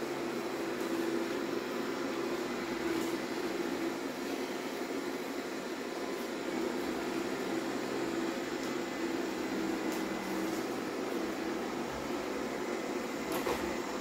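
Xiaomi Mi Robot Vacuum-Mop Essential robot vacuum running steadily as it cleans a tiled floor: an even whirring hum from its suction fan and brushes, with a brief click near the end.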